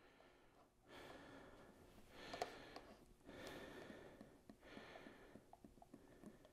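Motor oil pouring from a plastic quart bottle through a funnel into an outboard's oil fill: faint glugging in about four spells with short breaks as air gulps back into the bottle.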